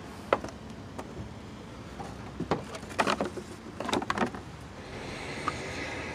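Plastic engine cover of a Chevy Cobalt's 2.2 L Ecotec engine being set back on and pressed down onto its mounts: a few sharp plastic clicks and knocks, bunched about three to four seconds in.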